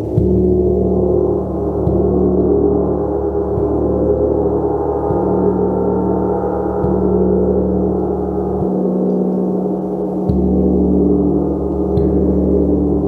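Gong struck in a slow, steady pulse, about once every one and a half to two seconds, each stroke feeding a deep, sustained hum.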